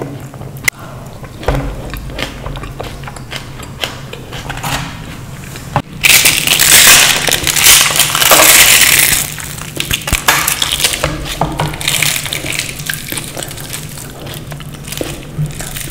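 Close-miked eating sounds: a person chewing and crunching food with many small clicks, and a louder spell of crunching from about six to nine seconds in.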